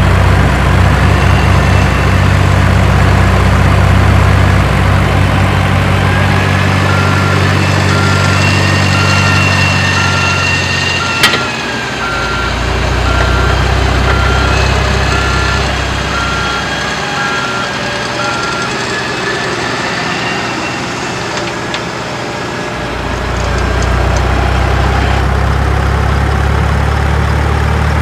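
Truck engine running steadily, as from a model construction vehicle's engine sound, with a reversing beeper sounding about once a second for some ten seconds in the middle. A single sharp click comes midway, and the engine hum drops and returns twice.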